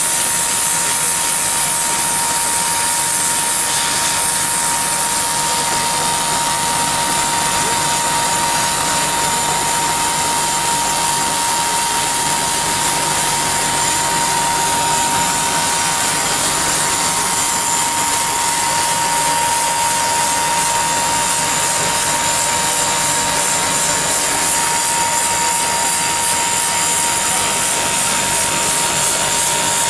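Automatic pad printing machine for pen barrels running: a steady, dense mechanical noise from its feeders and rollers, with a constant high whine.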